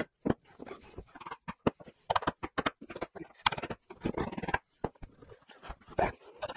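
Irregular series of sharp light hammer taps and knocks on a freshly glued wooden cabinet carcass, knocking a corner joint flush.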